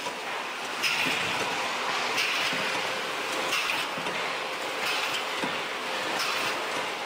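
Fish processing line machinery running: a steady mechanical clatter and hiss, with a louder surge repeating about every second and a half, as in a machine cycling.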